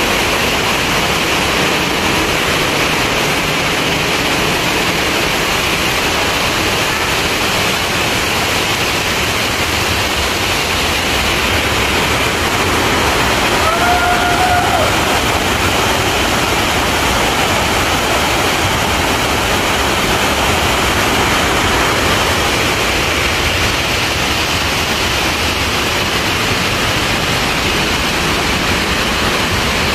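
Loud, steady rush of water pouring over a dam spillway, with a brief high tone about halfway through.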